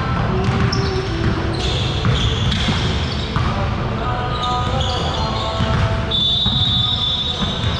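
Basketballs bouncing on a hardwood gym court, with short high sneaker squeaks from players moving on the floor, the longest one near the end.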